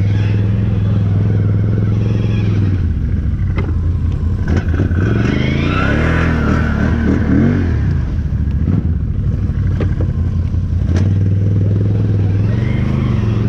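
Can-Am 1000's V-twin engine running steadily, then revving up and down with the throttle for several seconds in the middle, with a few knocks and rattles, before settling back to a steady run near the end.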